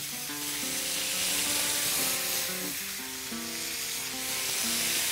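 Mallard duck pieces sizzling steadily in rendered bacon grease on a hot flat-top griddle, with background music playing underneath.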